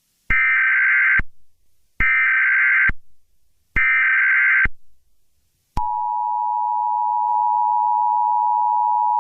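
Emergency Alert System warning: three screeching data bursts of about a second each (the SAME header), then, about six seconds in, the steady two-tone attention signal starts and holds.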